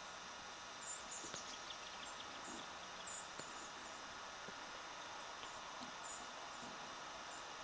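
Quiet woodland ambience: a faint steady hiss with scattered short, high-pitched chirps, several about a second in and near three seconds, more near six seconds and near the end.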